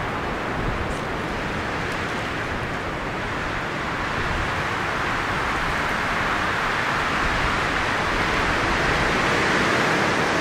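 Steady rushing of Conneaut Creek's water beneath the bridge, swelling a little louder over the last few seconds.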